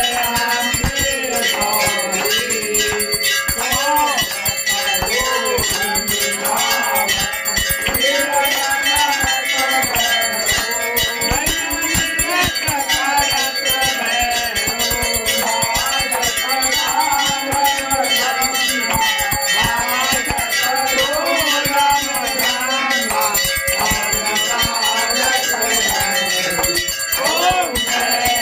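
Brass temple hand bell rung rapidly and without a break during aarti, its ringing tones held steady over the fast strokes.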